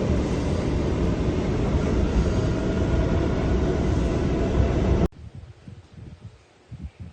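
Loud, steady rumbling noise, strongest in the low end, that cuts off abruptly about five seconds in. Faint low knocks follow.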